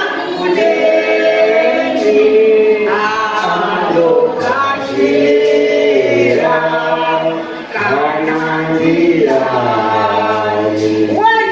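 A group of voices singing a Shona hymn together, holding long notes, with a sharp beat about once a second.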